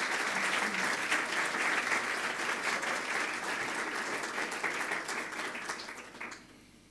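Audience applauding at the close of a speech: dense clapping that fades away near the end.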